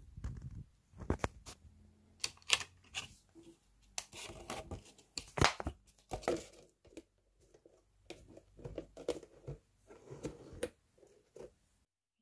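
Clear plastic bowl being handled, crinkling and clicking irregularly.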